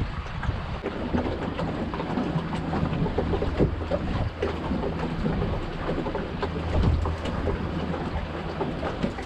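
Wind buffeting the microphone and water rushing along the hull of a small sailing dinghy under way, with scattered short knocks.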